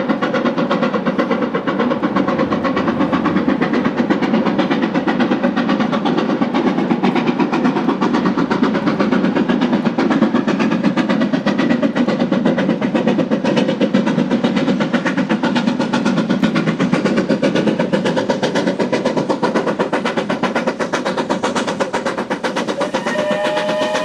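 BR Standard Class 7 Pacific steam locomotive No. 70000 Britannia working a passenger train, its two-cylinder exhaust beating rapidly and steadily over the running noise of the train.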